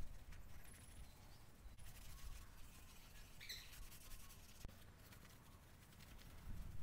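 Quiet outdoor ambience with a low rumble of wind on the microphone, and a short bird chirp about halfway through.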